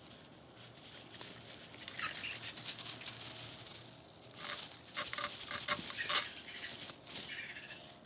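Hands working a plastic-sleeved ignition coil lead into place on a small engine: rustling and scraping of the sleeve against the metal, with a run of sharp clicks near the middle.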